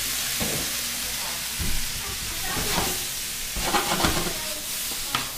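Brussels sprouts and turnips sizzling in hot bacon fat in a stainless steel sauté pan, a steady frying hiss, with a wooden spatula stirring and knocking against the pan several times.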